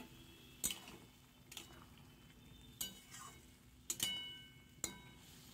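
Spatula stirring chana dal and vegetables in a metal kadai: about six faint scrapes and clinks roughly a second apart, a couple of them ringing briefly off the pan.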